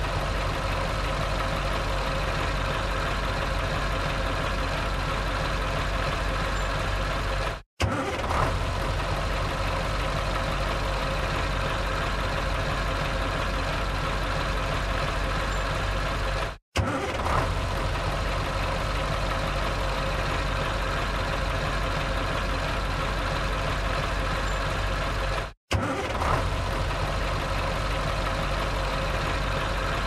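Truck engine idling steadily. It is a short recording looped, so three times the sound drops out for an instant and comes back with a brief louder surge.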